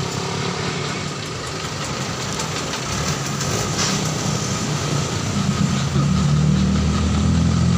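Large bus diesel engine running close by over traffic noise, getting louder about six seconds in as the bus draws near.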